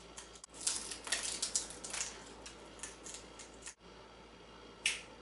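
Quick clicks and crackles from African grey parrots' beaks, bunched in the first two seconds, then a single sharp click near the end.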